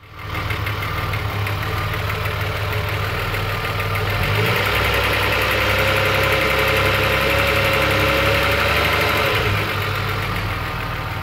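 VW Corrado's 2.8-litre VR6 engine (AAA) idling with the clattering rattle it makes whenever it runs. The owner first took it for hydraulic lifters, but traces it to a slack timing chain. For about five seconds in the middle it runs slightly louder, with a steady whine added.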